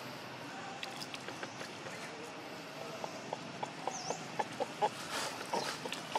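Long-tailed macaques moving and feeding in dry leaf litter: irregular crackles and clicks, more frequent from about halfway, over a steady background hiss.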